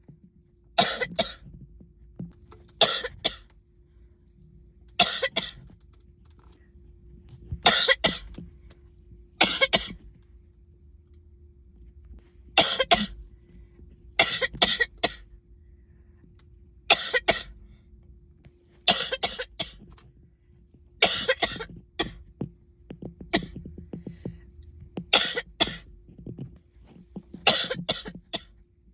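A person coughing in repeated short fits, one to three coughs at a time, about every two seconds. A faint steady hum runs underneath.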